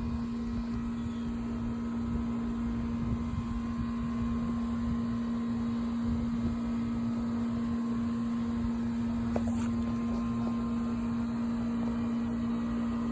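A steady mechanical hum with one constant low tone over a low rumble. A faint click about nine and a half seconds in.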